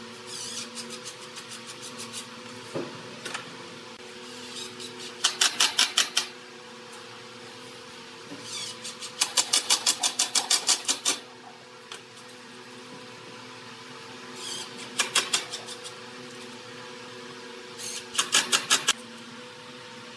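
Cordless impact driver driving screws into pine boards, its rapid hammering coming in several short bursts of about a second each, the longest near the middle. A steady low hum runs underneath.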